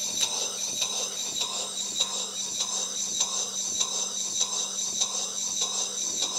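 1896 Sipp quarter-horsepower model horizontal steam engine running on compressed air: a steady hiss of air with a regular light puff or click about every 0.6 seconds as it exhausts. It is running on very little pressure, about 2–3 pounds, too low to register on the gauge.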